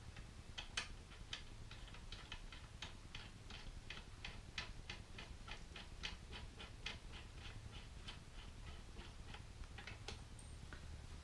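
Ratcheting tool turning a screw into a pannier rack bracket: a steady run of light, even clicks, about four a second.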